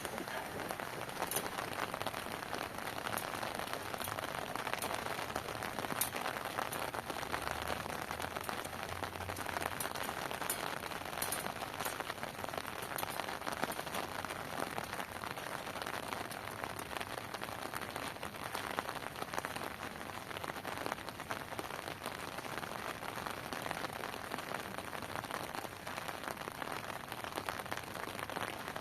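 Heavy rain falling steadily, a dense scatter of individual drop hits.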